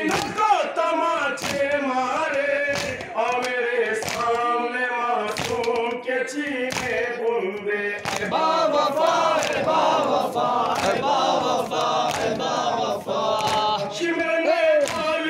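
Group of men chanting a Shia mourning noha in unison, with repeated sharp slaps of chest-beating (matam) through the chant.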